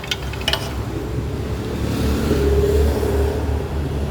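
A motor vehicle's engine running, its low hum swelling about two seconds in and easing off again, with a few light clicks at the start.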